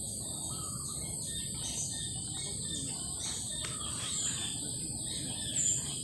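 Steady high-pitched chorus of insects, with a few short, faint chirps over it.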